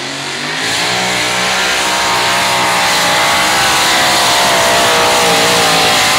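Supercharged engine of a Chevrolet two-wheel-drive pulling pickup at full throttle, dragging a weight-transfer sled. It grows louder about half a second in, then holds a high, wavering pitch.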